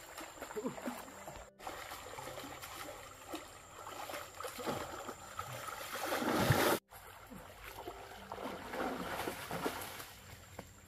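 Water splashing and churning as a person swims and then wades through a shallow stream, in repeated surges. The loudest surge builds and then cuts off abruptly about two-thirds of the way through, and more splashing follows.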